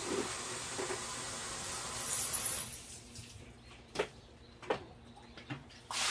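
Water running steadily from a tap, shut off about two and a half seconds in, followed by a few sharp clinks and knocks.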